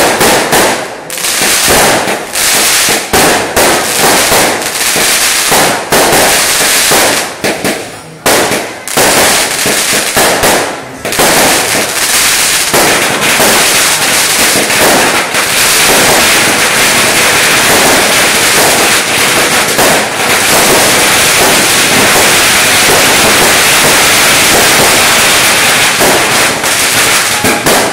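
Fireworks going off overhead in rapid succession: a fast run of bangs and crackles that, about halfway through, thickens into one continuous crackle.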